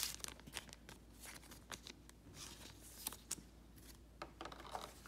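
Faint, scattered clicks and rustles of Pokémon trading cards and foil booster-pack wrappers being handled on a table.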